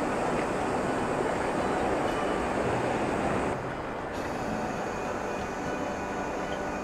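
Steady rushing of river current flowing over a shallow riffle, a little quieter from about three and a half seconds in.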